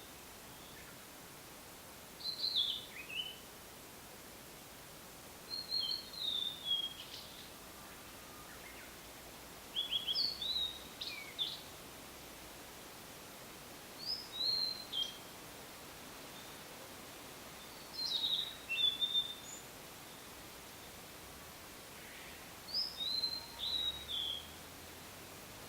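Blue-and-white flycatcher singing: six short phrases of high, clear whistled notes, several sliding down in pitch, each about a second long with a few seconds' pause between phrases.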